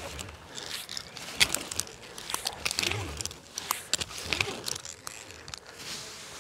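Rope-climbing gear clicking and rattling as a climber ascends a rope: metal ascender cams and carabiners knocking at an irregular pace over a faint background hiss.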